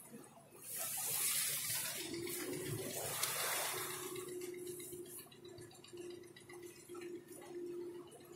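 Water splashing, loudest in the first few seconds, with a steady hum underneath from about two seconds in.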